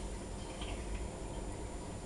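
Candy front-loading washer-dryer turning its wet load slowly between rinses: a steady low rumble from the drum with a few faint light ticks, not a spin.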